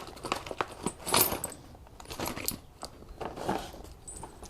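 Steel vise spacers clinking and rattling against one another as they are handled: a run of light metallic clicks with a few louder clatters.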